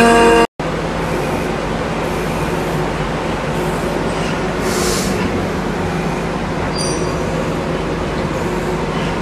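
Vertical CNC milling machine's spindle turning at about 2,750 RPM while drilling a mahogany block: a steady whir and hiss with a low hum. It opens on half a second of a higher, whining face-milling cut that breaks off abruptly.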